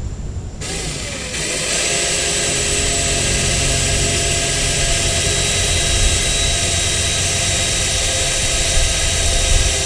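A power tool starts about half a second in and runs steadily with a constant whine and hiss, most likely a drill drilling out spot welds on a truck's rocker panel.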